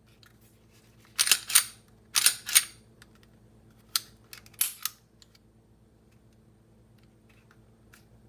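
A gun being loaded by hand: sharp metallic clacks of its action, mostly in quick pairs, seven in all over about four seconds.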